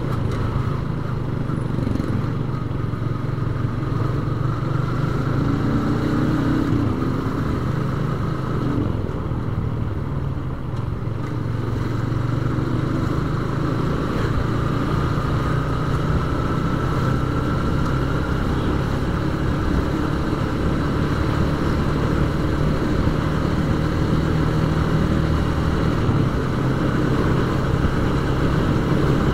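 Yamaha Vixion motorcycle's single-cylinder four-stroke engine running steadily under way, heard from on board the bike.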